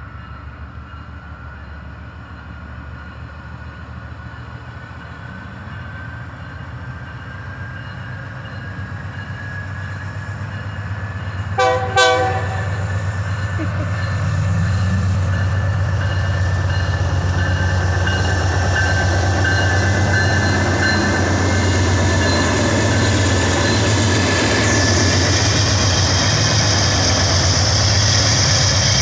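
Two GE Dash 8-40BW diesel locomotives pulling a train and drawing closer, their engine drone building steadily. About twelve seconds in, the lead unit's Nathan K3LA air horn gives one short blast. After that the locomotives run loud and steady close by, with a high hiss joining near the end.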